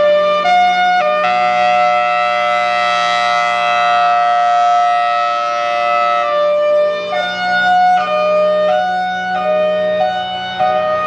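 Federal Signal Thunderbolt 1003 outdoor warning siren sounding its hi-lo alert, very loud: the tone alternates between a high and a low pitch about every half second, holds one steady pitch for about five seconds in the middle, then alternates again.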